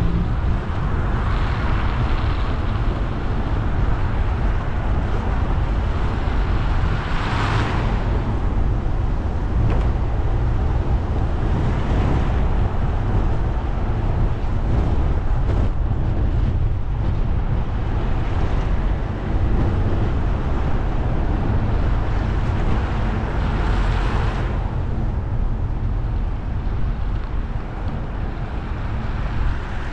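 Car driving on a wet road in the rain: a steady low rumble of engine and road noise under a hiss of tyres on wet tarmac. The hiss swells briefly twice, about seven seconds in and again near twenty-four seconds.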